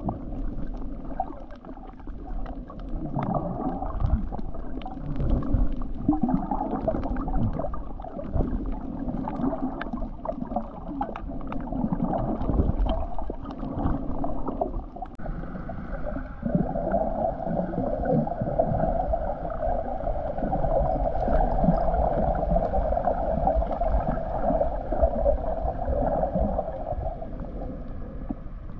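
Muffled underwater sound picked up by a camera in a waterproof housing as it moves through shallow water: sloshing and gurgling with scattered knocks. A steadier drone joins about halfway through and fades near the end.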